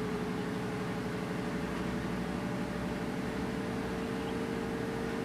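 A machine running steadily: a constant low hum with a single steady mid-pitched whine over it.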